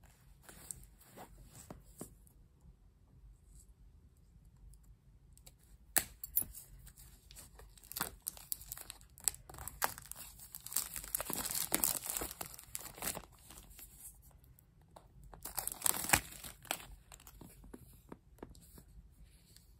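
Plastic shrink wrap being torn and peeled off a smartphone box, crinkling in bursts, with a few sharp clicks. It is loudest in the middle and again briefly near the end.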